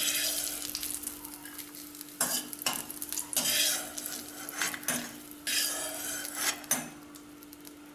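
Metal slotted spoon scraping and knocking against a nonstick kadai as fried cashews and raisins are scooped out of ghee, in several short strokes over a faint, steady sizzle of hot ghee.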